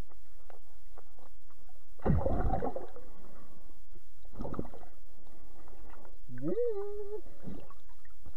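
Underwater sound picked up by a submerged camera: a steady low rumble, broken by two loud muffled bursts of water movement about two and four and a half seconds in. Near the end a muffled voice rises in pitch and holds briefly.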